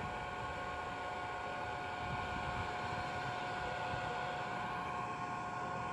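Toy whale bubble machine running: its small fan motor gives a steady whine with a few constant high tones over a hiss of blown air.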